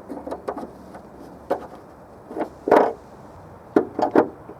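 Irregular small clicks and knocks, about ten, the loudest a little before three seconds in: a Mercedes-Benz hood star emblem's twist-lock mount being turned 90 degrees counterclockwise with a removal tool and the emblem pushed out of the hood.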